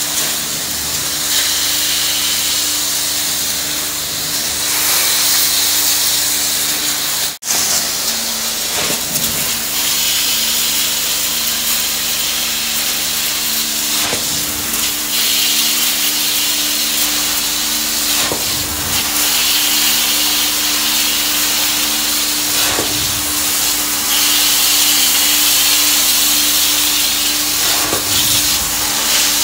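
Truck-mounted carpet extraction wand drawing hot water back out of the carpet. The vacuum makes a loud, steady rushing hiss over a constant hum, swelling briefly every four or five seconds.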